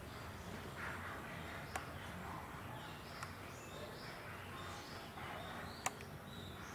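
Outdoor background with birds chirping, many short curved calls crowding together in the second half, and three sharp clicks, the loudest near the end.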